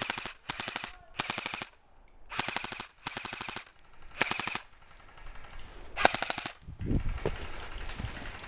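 Airsoft guns firing short full-automatic bursts: about seven quick strings of rapid, evenly spaced shots. Near the end a low rumble of handling or wind noise on the microphone.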